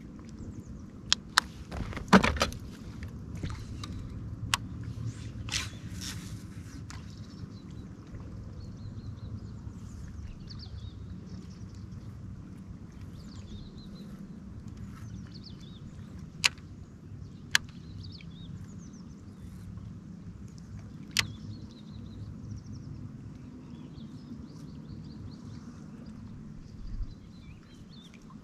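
Sharp clicks and knocks of fishing tackle being handled: a cluster in the first seven seconds, the loudest about two seconds in, then three single clicks later on. Under them a steady low rumble, with faint bird chirps.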